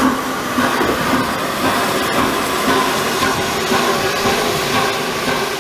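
Peppercorn A1 Pacific steam locomotive 60163 Tornado hissing steam, with a steady mechanical rumble from the engine.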